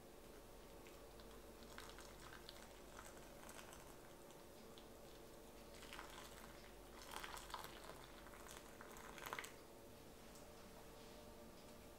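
Hot water poured from a kettle into a ceramic teapot, heard faintly as uneven splashing from about halfway through for three or four seconds, over a faint steady hum.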